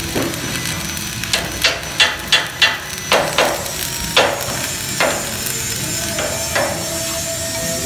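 Stick (arc) welding on steel: the electrode's arc crackles and sizzles steadily. In the middle comes a run of about a dozen sharp metallic clicks, several in quick succession, then spaced out.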